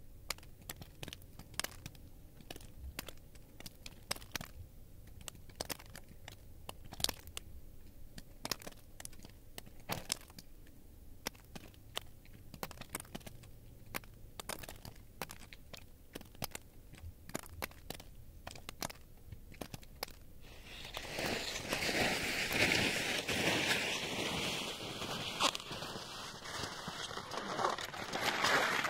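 Sparse, irregular faint ticks and crackles. About twenty seconds in, a louder steady rushing hiss takes over: cross-country skis sliding over snow, with its tone shifting upward as the skier moves off.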